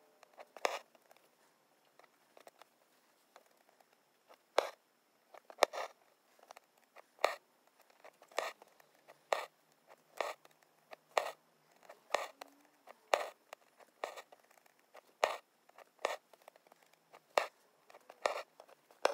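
Embroidery needle and thread drawn through cotton fabric stretched taut in a hand-embroidery hoop: a short rasp about once a second, each a stitch being pulled through, with a pause of a few seconds near the start.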